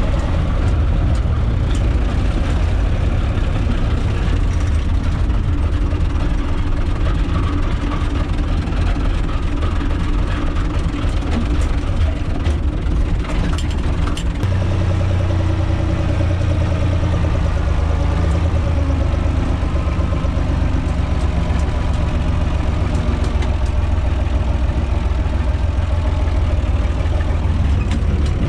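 UTB 445 4x4 tractor's diesel engine running steadily as the tractor drives, heard from inside its cab. The engine note shifts about halfway through.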